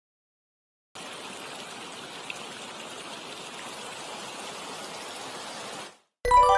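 Mountain stream water flowing steadily, cutting in about a second in and fading out near the end. Right at the end a loud ringing musical note starts.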